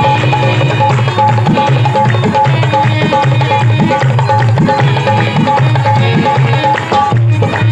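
Dholak and harmonium playing an instrumental passage of a Punjabi devotional song. The dholak keeps a steady hand-drummed rhythm, its low strokes sliding in pitch, under held harmonium notes. The harmonium line breaks off about seven seconds in while the drumming goes on.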